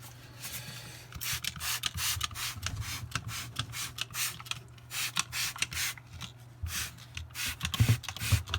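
Mold blocker being sprayed into an open wall cavity in many short hissing squirts, about two a second, with a short pause midway. A faint steady low hum sits underneath.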